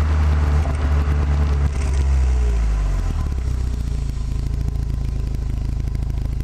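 Renault Megane R26's turbocharged 2.0-litre four-cylinder on its stock exhaust running at steady revs. The revs fall away over about two seconds, and the engine then settles into a steady lower-pitched run.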